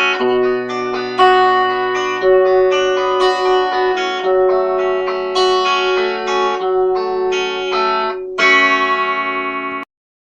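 Instrumental ending of a song: guitar playing a melody of plucked notes over sustained chords, closing on a final chord about eight and a half seconds in that cuts off suddenly, followed by silence.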